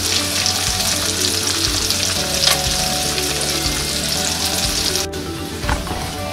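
Battered flounder pieces frying in peanut oil in a skillet: a steady, dense crackling sizzle. It drops sharply about five seconds in.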